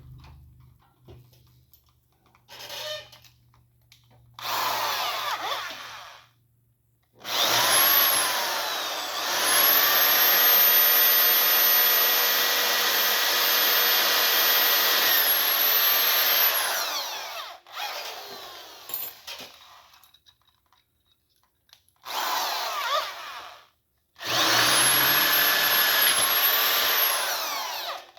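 Power tool working the cast-iron block of a 331 Hemi during crack pinning, run in several bursts with a high whine. Two short bursts come first, then a long run of about nine seconds in which the whine climbs, holds and falls away, and another run of about four seconds near the end.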